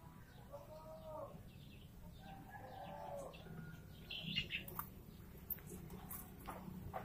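Faint bird calls: two arching calls about two seconds apart, followed by a few faint clicks.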